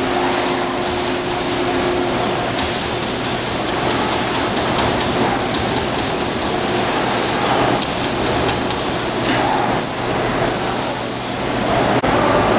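Steady factory-floor din: a loud even hiss over a low steady hum, with a faint tone that fades out about two seconds in.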